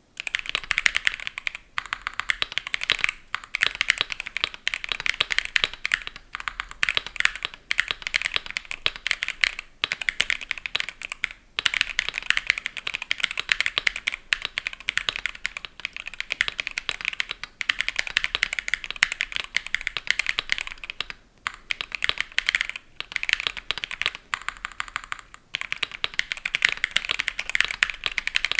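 Steady fast typing on a Keychron Q2 mechanical keyboard with lubed Durock POMS linear switches, a polycarbonate plate, PE foam, tempest tape mod and GMK-style keycaps: a dense run of keystroke clicks broken by a few short pauses.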